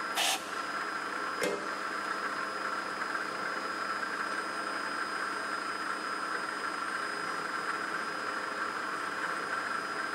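Drill press motor running steadily with a steady whine while drilling a row of holes in a thin aluminium plate. A short noisy burst comes just after the start and a sharp click about a second and a half in.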